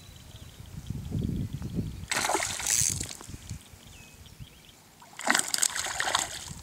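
A hooked bass thrashing at the pond surface, splashing twice about three seconds apart as it is fought on rod and line. Wind rumbles on the microphone underneath.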